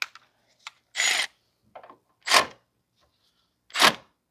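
Ratchet wrench tightening the new horn's mounting nut: three short bursts of ratchet clicking about a second and a half apart, with a few faint ticks between.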